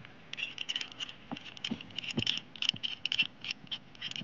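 Rapid, irregular metallic clicking and scraping as the knurled adjusting nut of a pipe wrench is rolled by hand to reset the jaw opening.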